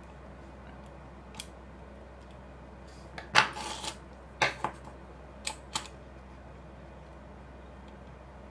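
Light clicks and taps of small hand tools, a screwdriver and soldering iron, being handled and set down on a wooden workbench during soldering, over a steady low hum. A quick cluster of clicks about three and a half seconds in is the loudest, with a few single ticks scattered after it.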